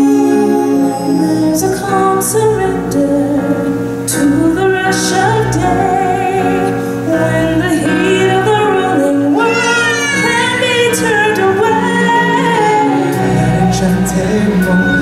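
Stage-show music with a woman singing long, wavering held notes over the accompaniment, with a few percussion hits.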